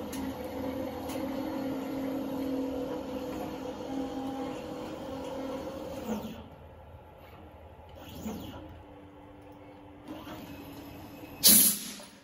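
Stepper motors of a CNC plasma table driving the gantry and torch into position, a steady motor whine that stops about halfway through, followed by shorter, quieter moves. Near the end comes a brief, loud hiss.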